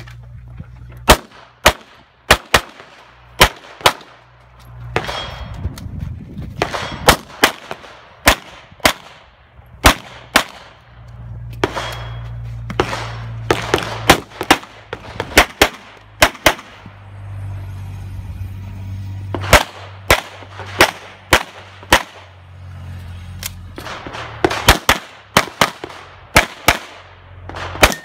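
Pistol shots fired in quick pairs and short strings, a dozen or so bursts spread across the run, with short pauses between strings as the shooter moves from one shooting position to the next.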